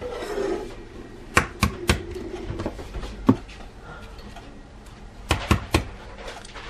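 Short, sharp taps of an egg and a plastic cup being handled on a hard kitchen countertop: three quick taps, a single one, then three more.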